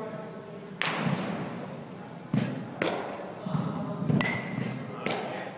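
A baseball bat strikes a pitched ball about four seconds in, a sharp crack with a short ringing ping. Several other sharp knocks and thuds of balls being hit and landing come before and after it.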